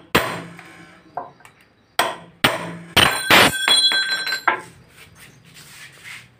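Hammer striking a steel chisel held against the steel band around a flour-mill millstone, tapping the band down. A few separate blows, then a quick run of ringing metal blows about three seconds in, stopping about a second and a half later.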